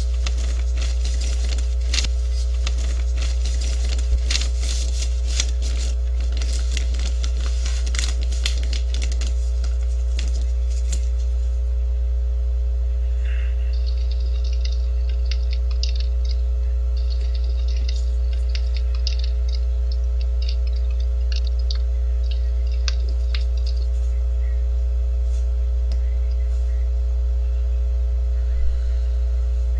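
Loud, steady, low electrical hum with a few fainter steady tones above it. Crackling clicks run through the first ten seconds or so, then give way to faint, scattered chirping noises.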